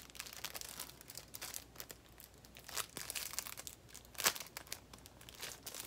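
A charm's small wrapper crinkling and rustling as it is opened by hand, with a louder crackle about four seconds in.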